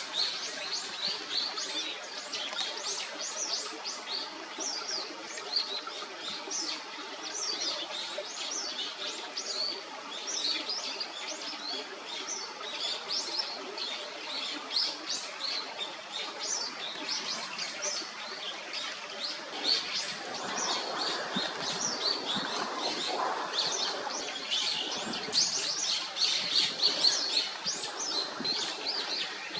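Many small birds chirping continuously, short high calls overlapping throughout. A duller, lower noise joins for a few seconds about twenty seconds in.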